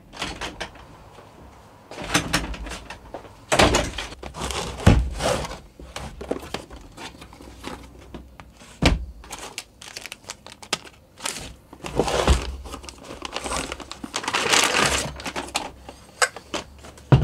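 Cardboard box and plastic packaging handled by hand: irregular knocks and thuds of the box on a wooden workbench, flaps and card scraping, and plastic bag crinkling, busiest about two-thirds of the way through.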